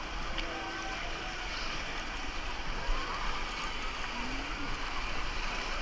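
Steady rushing and splashing of water as waves roll through a wave pool, with faint distant voices of people in the pool.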